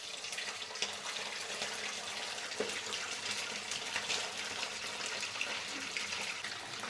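Pieces of boiled chicken frying in hot oil: a steady sizzle with many small crackles.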